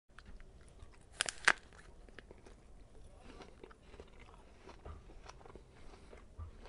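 A person biting into an apple: a few sharp crunches about a second in, then quieter chewing crunches.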